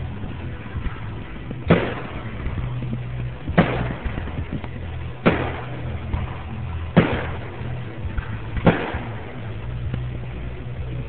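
Fireworks shells bursting: five sharp bangs about every second and three-quarters, each trailing off, over a steady low hum.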